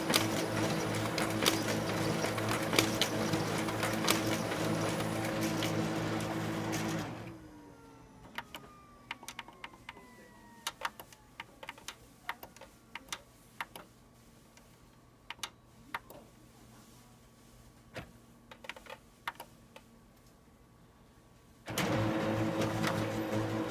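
HP LaserJet laser printer running its paper path test: motors and paper-feed rollers running with a steady hum and frequent clicking, then winding down with a falling whine about seven seconds in. A quieter stretch of scattered clicks from the control-panel buttons follows, and the same running starts again abruptly near the end.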